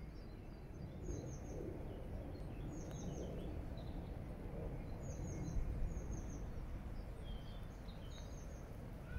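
Park ambience: small birds chirping in short runs of high, falling notes every second or two over a steady low rumble of background noise.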